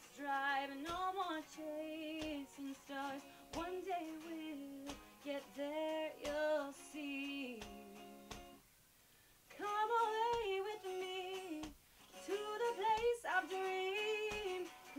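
A woman singing a slow melody with held, wavering notes over guitar accompaniment. The song breaks off for about a second near the middle.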